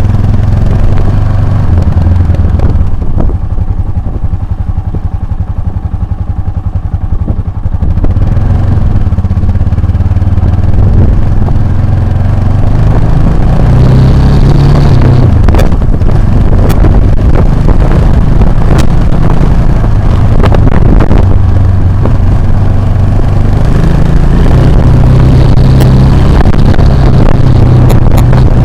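Motorcycle engine running while riding off-road, easing off for a few seconds and then pulling again, with a few sharp knocks partway through.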